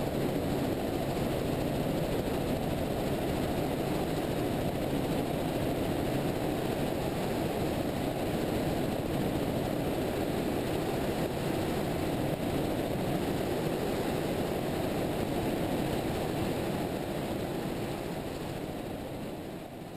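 Helicopter in flight: steady rotor and engine noise, fading out near the end.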